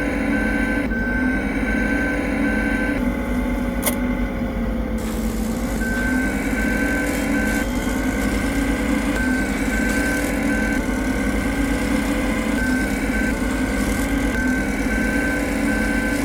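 An engine running, its pitch rising and falling every second or two, with a high beeping tone pulsing on and off in several stretches.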